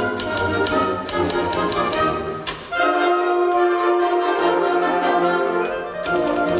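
Wind band with a typewriter played as a solo percussion instrument: rapid typewriter keystrokes click over the band, one sharp stroke comes about two and a half seconds in, then the band holds a brass chord with no typing, and fast keystrokes start again near the end.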